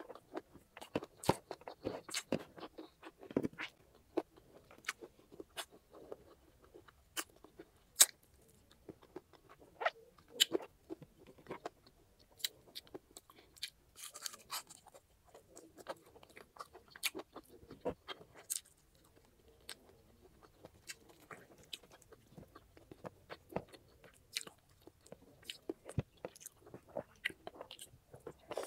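Chewing and biting while eating grilled chicken and rice: many short, wet mouth clicks and crunches at irregular intervals.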